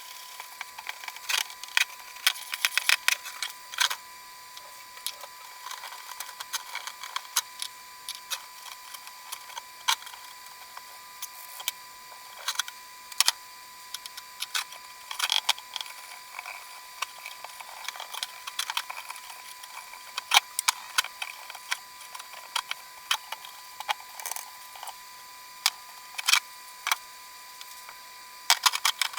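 Irregular sharp clicks and taps of small hard objects, sometimes in quick clusters, over a faint steady high-pitched tone.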